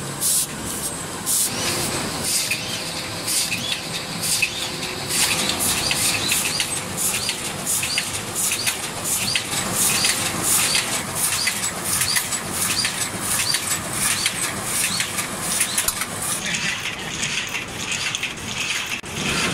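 MARVCUT 106S automatic flatbed die-cutting machine running, a steady mechanical clatter with a regular beat of sharp high ticks, roughly one and a half to two strokes a second, as sheets are fed and cut in cycle.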